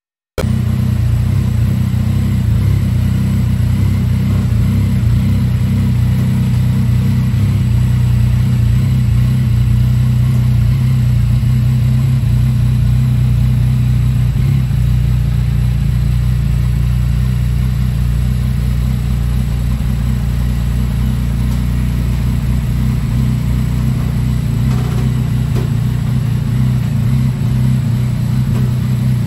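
2017 Yamaha XSR900's 847 cc inline three-cylinder engine idling steadily through an Akrapovic exhaust, starting about half a second in.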